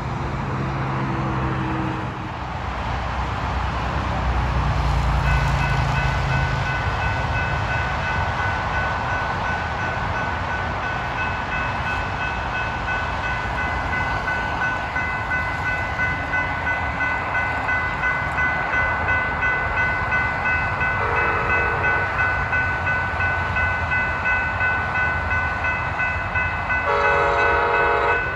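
Railroad crossing bell ringing steadily while an approaching passenger train sounds its horn: a short blast about 21 seconds in and a longer one near the end. A low rumble fills the first few seconds.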